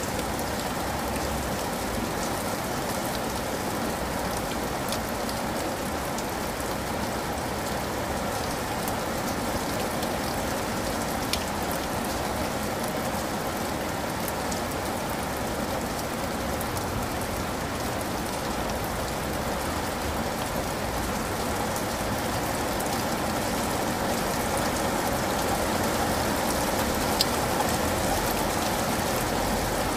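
Steady rain falling in an even, unbroken patter, with a couple of sharper single ticks partway through and near the end.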